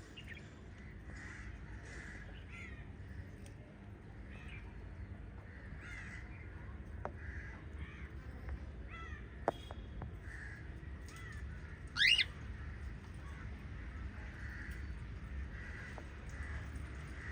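Small pet parrots chirping and squawking off and on, with one loud rising squawk about twelve seconds in, over a steady low hum.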